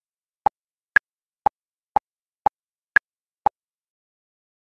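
Evenly spaced metronome-style clicks, two a second, every fourth click higher and louder like an accented downbeat; they stop abruptly about three and a half seconds in.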